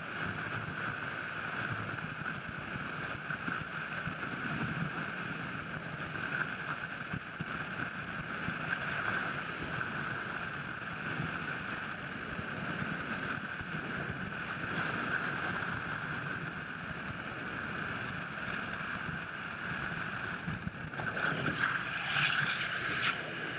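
Freefall wind rushing past a skydiver's camera in its housing: a steady, muffled rush. About three seconds before the end it turns louder and hissier.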